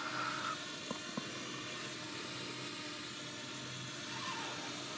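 Camera drone hovering overhead: a steady whir of its propellers made of several even tones. Two faint clicks come about a second in.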